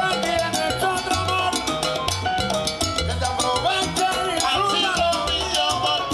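Live salsa band playing, with a bass line of held low notes under dense conga and percussion hits and melodic lines above.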